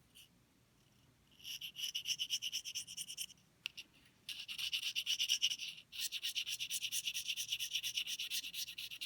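Reed knife scraping the cane of an English horn reed blank in quick, short rasping strokes, several a second, to take the bark off. The strokes come in three runs with brief pauses between them.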